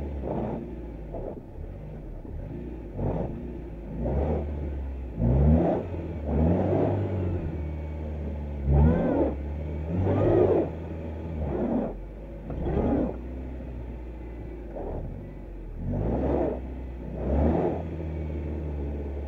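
Lada VAZ-21099's four-cylinder petrol engine revving in about a dozen short bursts, settling back toward idle between them: the car is stuck in a bog and being driven hard to get it out.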